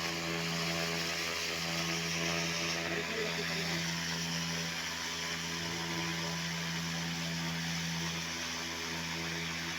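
An engine running steadily at constant speed, with an even hum.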